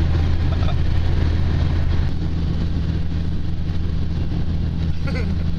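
Neon's four-cylinder engine droning through an exhaust with no muffler, heard from inside the cabin while cruising at highway speed. A steady, loud low drone over road noise.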